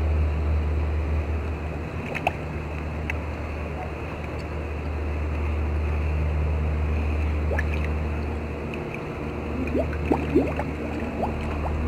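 Muffled underwater sound from a camera submerged in a swimming pool: a steady low hum under an even wash of water noise. About ten seconds in come a few short rising bubbling sounds.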